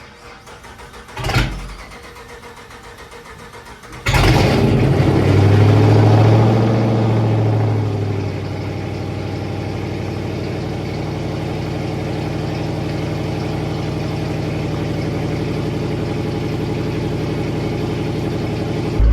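A car engine starts about four seconds in, catching at a fast, louder idle that settles after about four seconds into a steady idle. A short loud noise comes about a second in, before the start.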